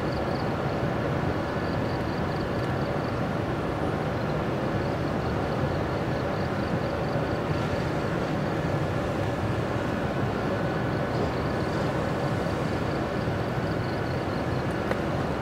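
Steady mechanical hum with several held tones, unchanging throughout, with a faint high-pitched pulsing trill running over it.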